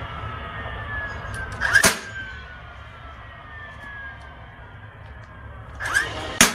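DeWalt DCN681 cordless stapler shooting staples through upholstery fabric into the seat. Each shot is a sharp snap with a short rising chirp just before it and a motor whine sliding down in pitch after it. There is one shot about two seconds in and two in quick succession near the end.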